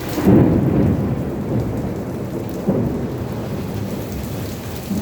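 Heavy rain falling steadily, with a loud low rumble of thunder that breaks about a third of a second in and rolls on, swelling again near three seconds in.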